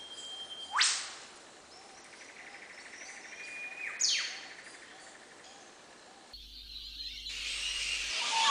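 Soundtrack of faint high chirps and held whistle-like tones, cut by two sharp rising swishes, one about a second in and one about four seconds in. Louder music swells in near the end.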